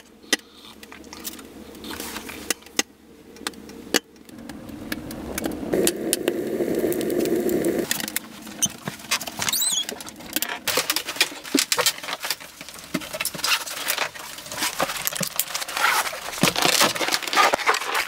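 Clicks, knocks and rustling of a person moving about and handling things in a small wooden shelter, with a steadier rustling noise for about two seconds near the middle and denser clicking toward the end.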